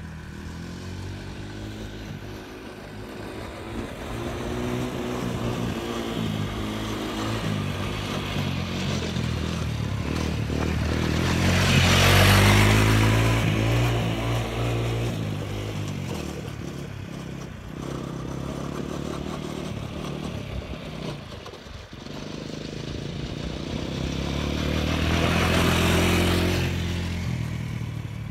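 Honda TRX90 ATV's small four-stroke single-cylinder engine revving up and down as the quad rides around, with the engine pitch rising and falling. It grows loud twice as it passes close by, about twelve seconds in and again near the end.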